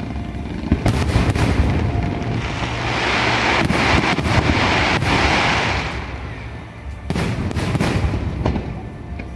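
Aerial fireworks bursting, with sharp bangs about a second in, again around four to five seconds, and a cluster near eight seconds. A loud hiss swells in the middle and fades by about six seconds. Music plays underneath.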